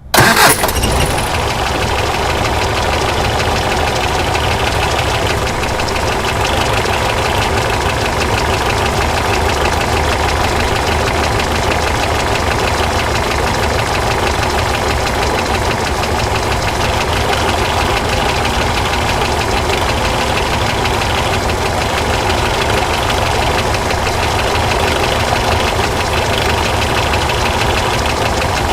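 School bus engine starting with a sudden burst, then settling straight into a steady idle.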